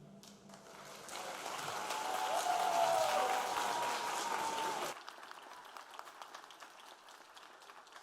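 Concert audience applauding after a band piece ends, building to its loudest with a cheer rising out of it, then dropping suddenly about five seconds in to faint scattered clapping.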